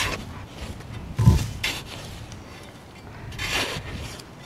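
Small hand spade digging in dry sandy soil to open a pocket gopher tunnel: the blade scrapes through the dirt, with a sharp thump about a second in and a longer scrape of soil near the end.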